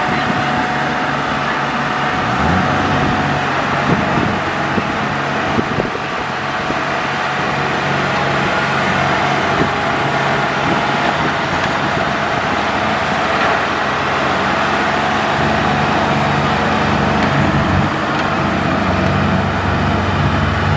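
Diesel farm machinery engines running steadily, with a thin steady whine that fades out about halfway through.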